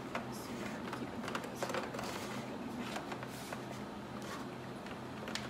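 Soft rustling, scraping and light ticks of a thin cable being pushed and tucked behind brackets and plastic trim by hand, over a steady low hum.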